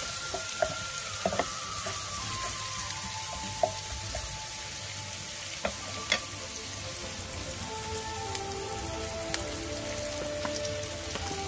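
Minced garlic and sliced shallots sizzling steadily in hot oil in a nonstick pan. A wooden spatula taps the pan a few times as they are stirred.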